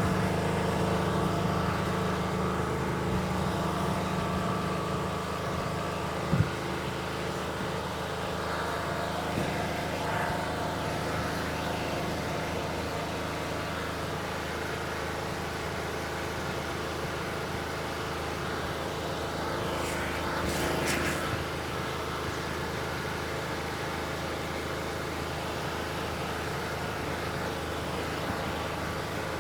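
A steady engine-like hum of several held tones, as from a running vehicle or motor. A single sharp knock comes about six seconds in, and a short noisy rush about twenty seconds in.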